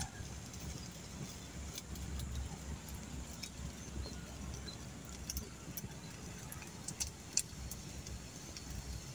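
Wood campfire crackling, with scattered sharp pops and clicks over a low steady rumble.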